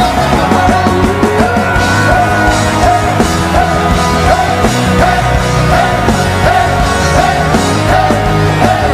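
Loud live worship band music, a short bending melodic phrase repeating about once a second over a full, steady low end.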